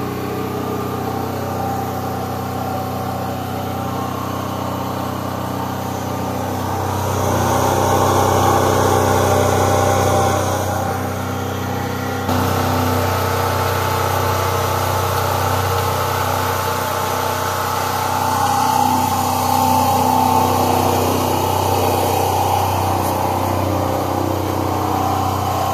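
Powermate PM4500E portable generator's single-cylinder gasoline engine running steadily at its governed speed, an even engine note with no change in pitch. It grows louder about seven seconds in and again with a sudden step about twelve seconds in.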